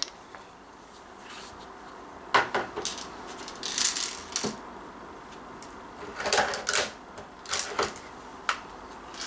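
Scattered metallic clicks and rattles from handling a Daisy Model 340 spring-powered BB pistol, with about a dozen short clicks and rustles spread through the stretch.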